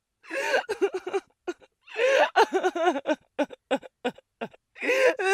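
A person's voice making short, broken, pitched vocal sounds, a string of quick bursts with brief silences between them.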